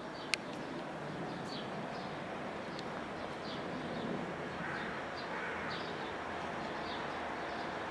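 Outdoor city ambience: a steady hum of traffic with small birds chirping now and then, and one sharp click just after the start.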